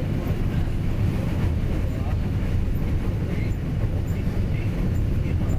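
Train running on the rails: a steady low rumble.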